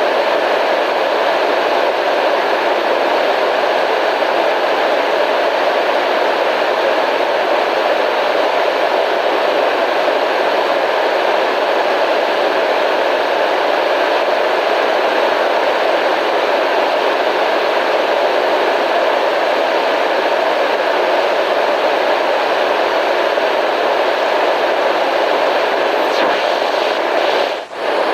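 Steady, even hiss of a white-noise ambience track, unchanging throughout, with one brief drop in level shortly before the end.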